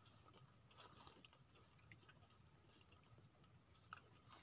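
Near silence, with faint scattered small clicks and ticks and a slightly sharper click near the end.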